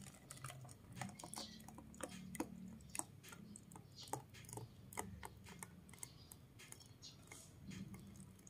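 Faint, irregular light clicks and pattering from batter being strained through a wire-mesh sieve into a plastic jug, over a low steady hum.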